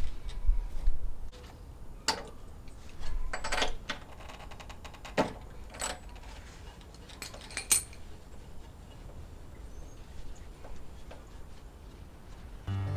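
Scattered light metallic clinks and knocks of hand tools and metal parts being handled, with no engine running. Strummed acoustic guitar music starts just at the end.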